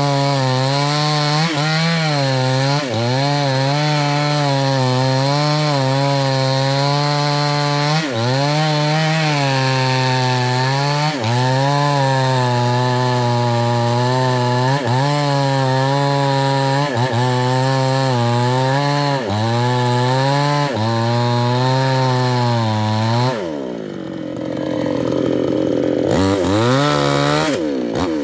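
New West 628 two-stroke chainsaw with a 24-inch bar at full throttle, cutting into the buttressed base of a sengon tree, its engine note dipping briefly under load every second or two. Near the end the throttle is let off and it drops to idle for a couple of seconds, then revs back up.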